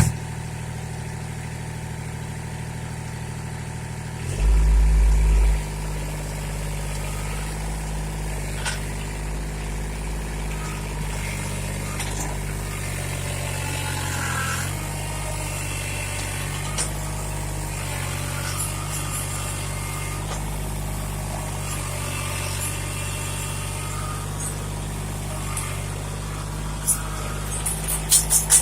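Kubota L2501 compact tractor's three-cylinder diesel engine running steadily while working, with a loud low rumble about four seconds in and a change in the engine note about halfway through. A fast run of sharp rattling clicks starts near the end.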